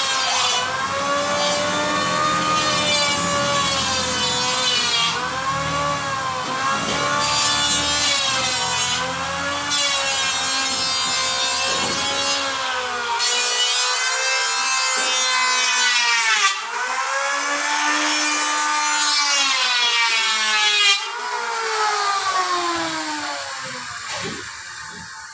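Electric power tool cutting wood, its motor's whine sagging in pitch and picking up again every few seconds as it bites into the material and eases off, then fading out near the end.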